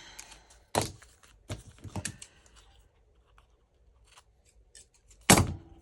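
Scissors cutting paper: a few separate sharp snips, the loudest near the end.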